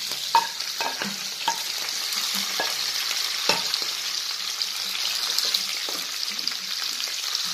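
Fried eggplant and pork sizzling in oil in a frying pan, with the knocks and scrapes of a wooden spatula stirring them, mostly in the first few seconds.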